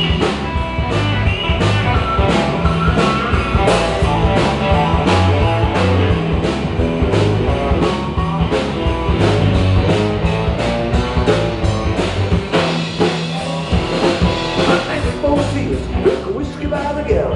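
Rock-and-roll band playing an instrumental break: a steady drum beat of about two strokes a second under bass and guitar.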